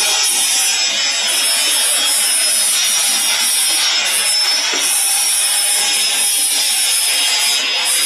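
Rotary bottle capping machine running: a steady, hissing, rasping mechanical noise with no pauses.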